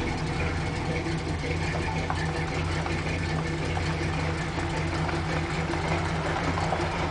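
Dodge Power Wagon truck engine running steadily at low speed while towing another truck, with an even low hum.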